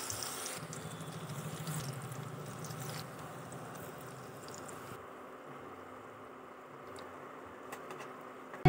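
Cabbage and goat-fat pakora batter frying in hot oil in a small pan, a steady sizzle and bubbling. It is loudest for the first few seconds as the batter goes in, then softer, with a few light clicks of a utensil against the pan near the end.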